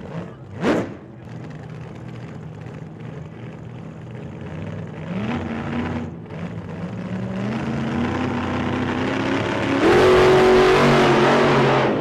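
A vehicle engine speeding up, its pitch climbing in steps as it grows steadily louder, loudest near the end; a short swish about a second in.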